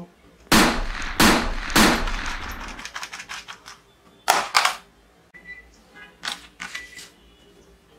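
Three loud gunshot-like bangs in quick succession, each trailing off, then two sharper plastic knocks as a toy pistol is set down on a pile of plastic toy guns, followed by faint clicks of toys being handled.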